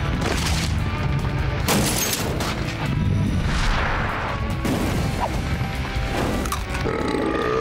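Background music with several booms and crashing impact sound effects over it.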